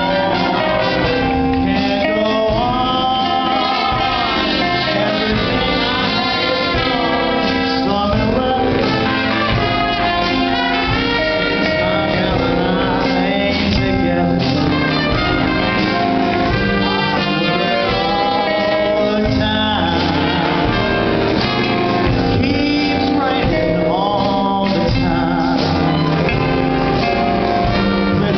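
Jazz music with brass horns playing a melody.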